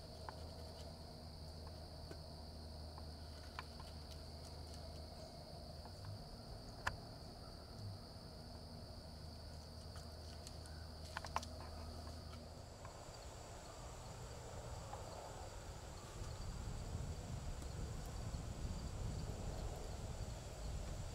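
Steady, high-pitched insect chorus of chirring crickets. The drone shifts higher in pitch about thirteen seconds in. There are a couple of sharp clicks around seven and eleven seconds in, and shuffling in dry leaf litter in the last few seconds as elk move about.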